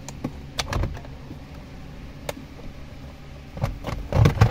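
Plastic clicks and rattles of wiring-harness connectors being unplugged from the back of a car's instrument cluster: a few scattered clicks, then a louder bunch of knocks and rattles near the end.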